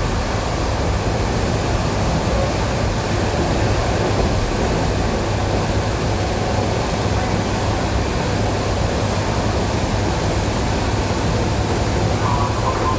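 ED9E electric train running steadily, heard from inside the carriage: a continuous low rumble of wheels and running gear. A brief higher tone comes in near the end.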